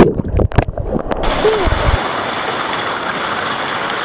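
Muffled underwater bubbling and rumble just after a jump into a rock pool, heard with the microphone under water; about a second in it gives way to the steady rush of water pouring over rocks as the microphone comes up.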